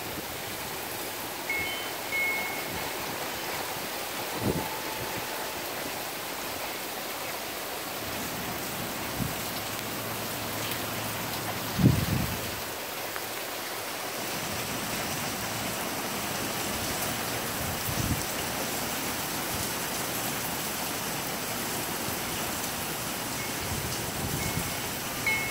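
Heavy rain falling steadily, heard as an even hiss, broken by a few short low thumps. The strongest thump comes about twelve seconds in.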